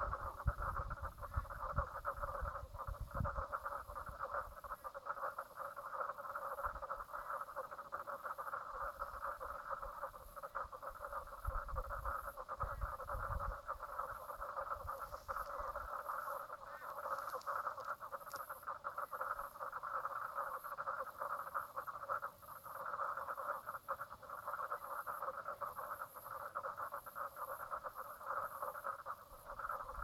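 Chorus of frogs calling continuously from the lake edge, a dense mass of rapidly pulsing calls that never lets up, with a fainter high pulsing layer above it. Low rumbles break in during the first few seconds and again around twelve seconds in.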